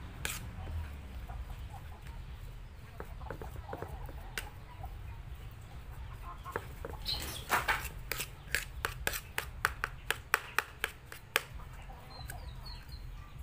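Metal spoon scraping and pressing against a ceramic bowl while mashing cooked purple yam. A scrape a little past halfway, then a quick run of sharp clinks, about four a second.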